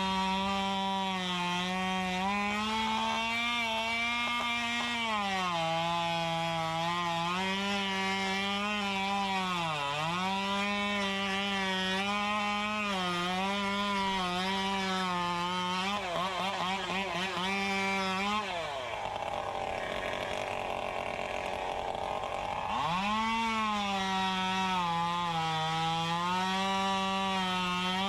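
Two-stroke chainsaw running at high revs, its engine note dipping and rising again and again. About two-thirds through, the engine note falls away for a few seconds, leaving a rushing noise, then climbs back up.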